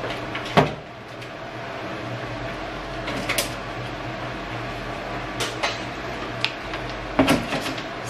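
Plastic water bottles being laid and stacked in a refrigerator's plastic drawer: a sharp knock about half a second in, then scattered clicks and crinkles of the thin bottles.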